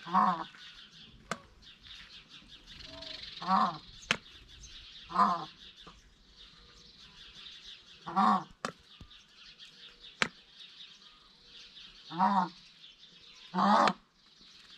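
Peafowl giving short, loud, honking calls, six of them spaced a few seconds apart, with a few sharp clicks in between.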